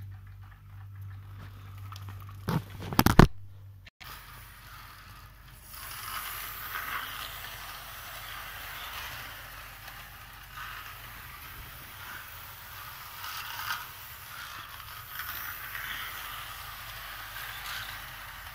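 HO scale model train running on sectional track: a steady mechanical rattle of the small motor and wheels with irregular swells. A few sharp knocks about three seconds in are the loudest sound, before the sound cuts.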